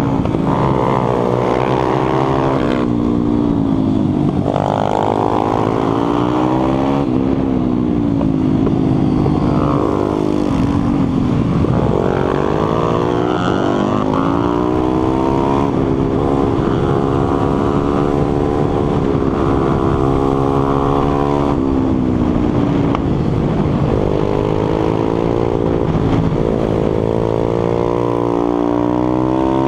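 Stomp 140 pitbike's single-cylinder four-stroke engine at racing revs, its pitch climbing hard through each gear and dropping away when the throttle is shut for corners, again and again, heard from on board.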